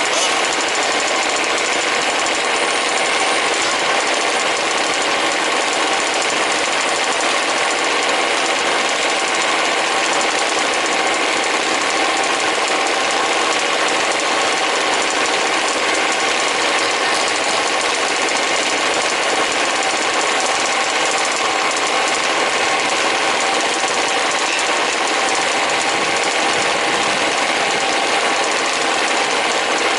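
Several 1/5th-scale RC trucks' small two-stroke petrol engines buzzing together at race pace in a steady, unbroken drone.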